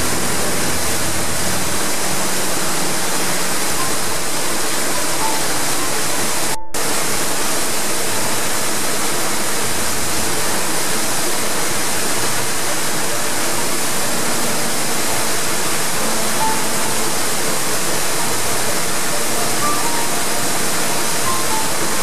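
Steady rushing and splashing of a mountain waterfall plunging into a rock pool, with the sound cutting out for an instant about six and a half seconds in.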